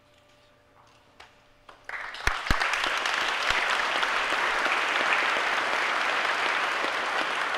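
Audience applauding, breaking out suddenly about two seconds in and holding steady, with a couple of sharp knocks near its start.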